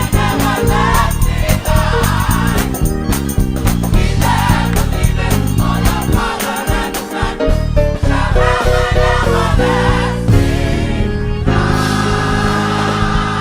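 Gospel choir singing with band accompaniment, over a driving bass line and a drum beat.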